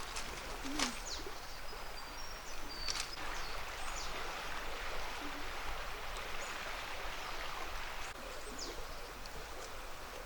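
Outdoor ambience: a steady background hiss with a few short bird chirps and faint clicks scattered through it.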